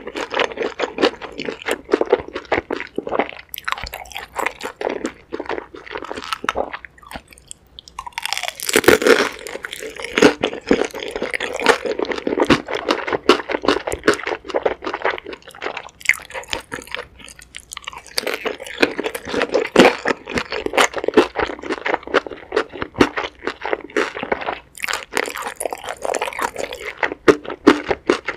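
Close-miked eating sounds from a mouthful of pan-fried dumpling in spicy sauce: rapid wet chewing and crunching with a few short pauses, and a louder crunch about nine seconds in.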